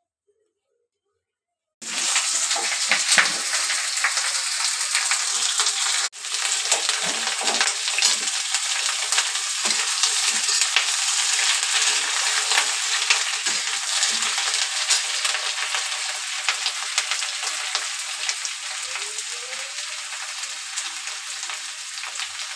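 Raw jackfruit pieces frying in hot oil in a kadhai, sizzling loudly with the clicks and scrapes of a metal spatula stirring them. The sizzle starts suddenly about two seconds in, breaks off for an instant around six seconds, and slowly eases toward the end.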